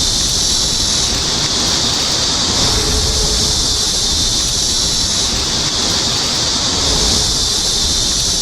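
Steady, harsh metalworking noise: a loud, high hiss with a rough crackle beneath it, from metal being worked on the factory floor. It changes abruptly at the end.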